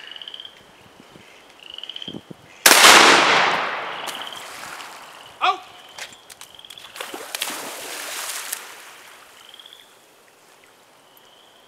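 A single shotgun shot about a quarter of the way in, its echo trailing off over a second or so. A few seconds later a retriever leaps off its platform and splashes into the pond. Short high chirps recur throughout.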